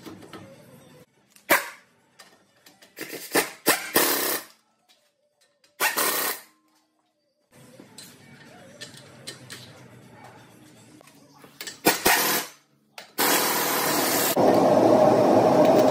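Brake caliper being bolted back onto a car's front wheel hub: metal clanks and several short bursts of a power wrench, then a longer steady run of the tool near the end.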